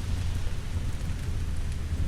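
Steady rain with a low, continuous rumble of thunder underneath, and a few faint crackles of a wood fire near the end.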